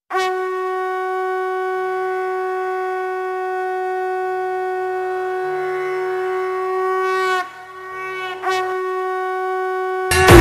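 Conch shells (shankh) blown in one long, steady note held for about seven seconds. The note falters briefly, then sounds again for about two seconds. Loud drums and music cut in at the very end.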